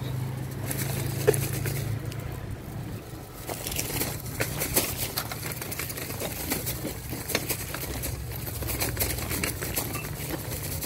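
Irregular crunching footsteps on railway track ballast, over a low hum of road traffic that is loudest in the first few seconds.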